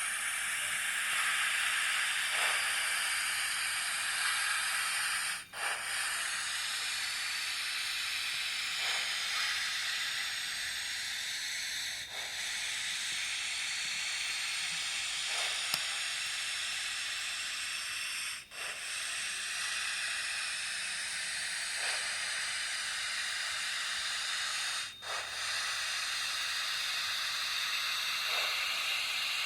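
Steam locomotive sound effects from a QSI sound decoder in a model locomotive: a steady steam hiss with faint soft pulses about every three seconds, briefly cutting out a few times.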